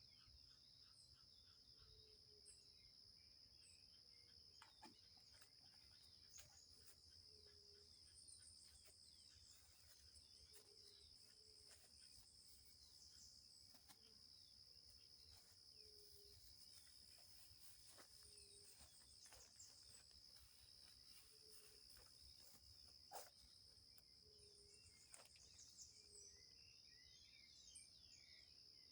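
Faint night chorus of crickets and other insects in forest, a steady high trill. Under it a short low call repeats about every two seconds, with scattered faint clicks and one louder knock late on.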